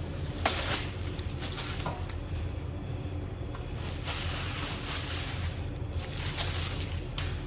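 Parts being handled and fitted by hand: irregular rustling and scraping over a steady low hum.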